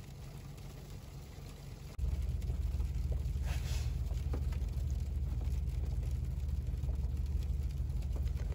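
Low, steady car engine rumble heard from inside the cabin, getting suddenly louder about two seconds in, with light rain pattering on the windshield and a brief hiss about three and a half seconds in.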